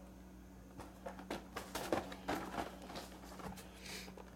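Carded action figures being handled and swapped: a scatter of light crinkles, clicks and taps from the plastic blister bubbles and cardboard backing cards.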